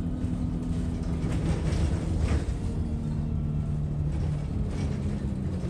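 Alexander Dennis Enviro 200 single-deck bus heard from inside the saloon while on the move: the diesel engine and driveline run with a steady low drone. The pitch of the drone shifts about a second and a half in and again about three seconds in.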